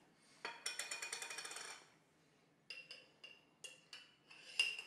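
Small jar and its lid handled over a plate: a rapid rattling run lasting about a second and a half, then a string of separate sharp clinks with a short ring.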